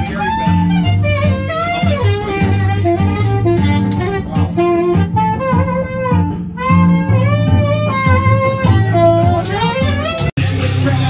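Saxophone playing a jazzy melody over a backing track of bass and guitar. The music drops out for an instant near the end.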